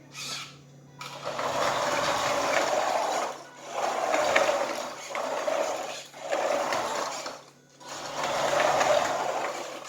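Small electric drive motor and plastic gears of a 3D-printed RC car whirring in four runs of a second or two each, with short stops between. The car has plastic tyres on hard floor.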